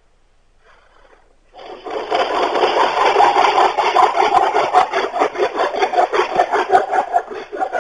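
Hand saw cutting across a thin wooden stick with quick, steady back-and-forth strokes, starting about a second and a half in and stopping right at the end.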